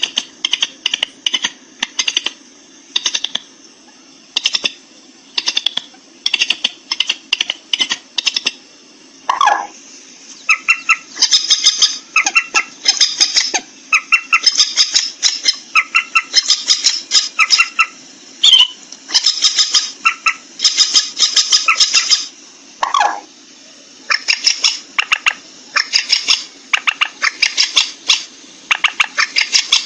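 A rail of the moorhen and waterhen kind calling over and over in harsh, rapid pulsed notes, in runs of about a second with short gaps, over a faint low steady hum.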